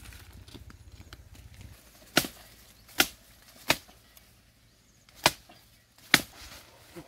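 Machete chopping at a branch in undergrowth: five sharp chops, unevenly spaced, with a faint sixth near the end.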